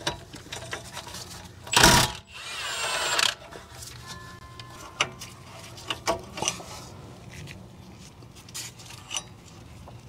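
Cordless impact wrench running in one burst of about a second and a half, about two seconds in, spinning out a 17 mm brake caliper slide pin bolt. After it come scattered light metal clicks as the loosened slide pin bolts are drawn out by hand.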